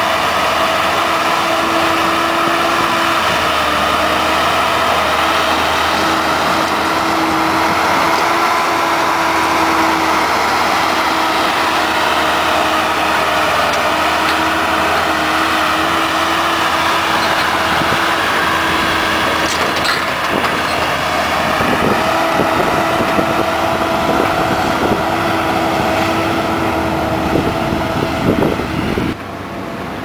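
Case 450CT compact track loader's diesel engine running steadily under load as the machine drives back and forth, its pitch wavering slightly. Scattered knocks and clatter join in during the last third, and the sound drops suddenly just before the end.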